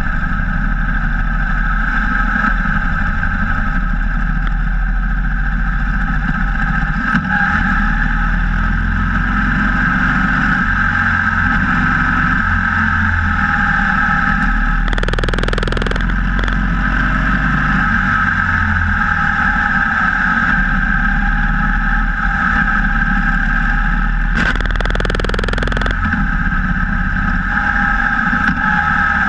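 Cruiser motorcycle running steadily at road speed, its engine hum mixed with wind and road noise. Two short rushes of louder noise come about fifteen and twenty-five seconds in.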